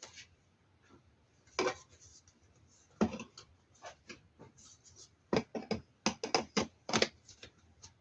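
Plastic parts of a cordless stick vacuum being handled and pushed together: scrapes and sharp clicks and knocks, a few at first, then a quick run of them between about five and seven and a half seconds in.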